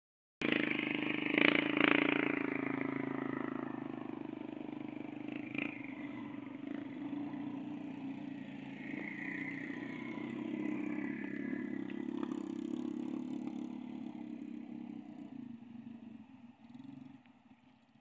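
An engine running steadily, loudest in the first couple of seconds and then slowly fading away.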